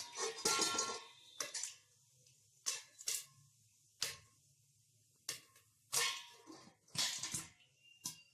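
Popcorn kernels popping in a lidded kadai: irregular sharp pops against the lid, one or two a second, with a quick flurry near the start.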